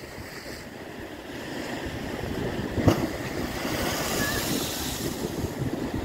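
Wind-driven Black Sea waves washing and splashing, with wind buffeting the microphone. It grows louder after about two seconds, with a brief thump about halfway through.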